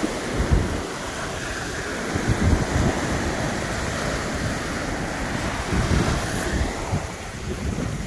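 Small waves washing onto a shingle beach, with gusts of wind buffeting the microphone in low rumbles.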